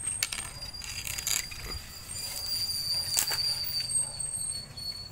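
Irregular light clicks and scuffs of a Belgian Malinois's paws and claws on concrete, over a steady thin high-pitched tone.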